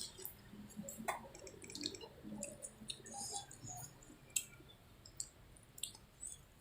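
Soft, wet clicks and smacks of a person chewing a mouthful of food, scattered irregularly.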